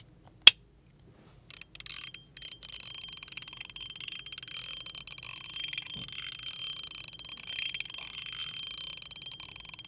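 Metilis Hertz haptic fidget coin with a rubber ring fitted, being worked by hand: one sharp click about half a second in, then from about a second and a half a fast, continuous run of high metallic clicks with a thin steady ping ringing underneath.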